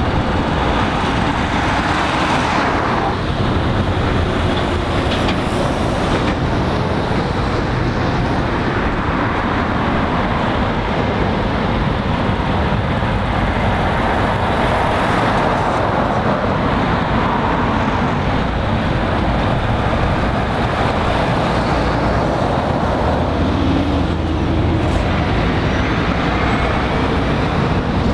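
Road traffic passing close by, articulated lorries among it: steady tyre and diesel engine noise that swells and fades as each heavy truck goes past.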